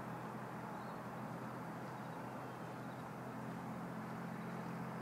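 Steady low hum under an even hiss of background noise, with no distinct event.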